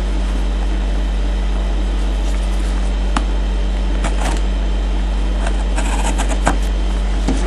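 A steady low electrical hum, with a few short crackles and clicks from hands working open a card box's packaging.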